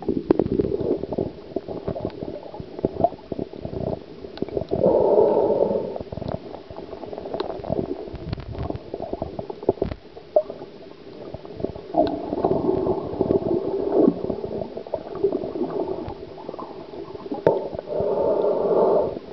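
Muffled water noise heard through a camera held underwater: low gurgling and sloshing with scattered small clicks. It swells louder about five seconds in, again in the middle, and near the end.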